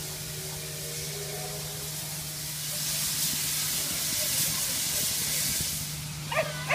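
Steam hissing from a standing steam locomotive, louder for a few seconds in the middle, over a steady low hum.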